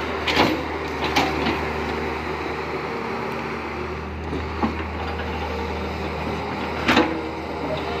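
Hitachi EX200 tracked excavator's diesel engine running steadily as it digs in soil and brick rubble, with a few sharp knocks of the bucket and rubble, the loudest about seven seconds in.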